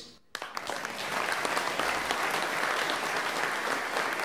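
Audience applauding, many hands clapping. It starts suddenly about a third of a second in and holds steady.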